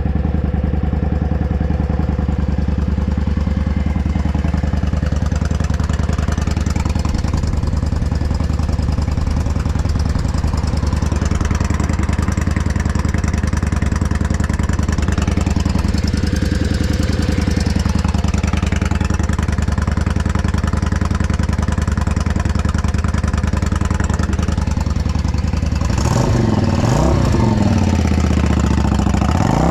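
Yamaha Drag Star 400's air-cooled V-twin idling steadily through a Kentec 2-into-1 big slash aftermarket muffler, then blipped near the end, the revs rising and falling twice. It runs with no abnormal noise.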